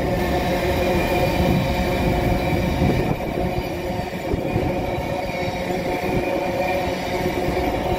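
Freight wagons rolling past close by, ore gondolas and then empty flatcars: a steady rumble of steel wheels on rail, with a steady metallic ringing tone running through it.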